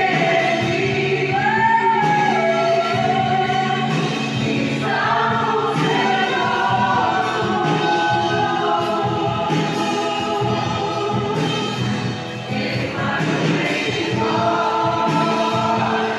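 Live gospel worship song: several men's and women's voices singing together into microphones, with acoustic guitar strummed underneath.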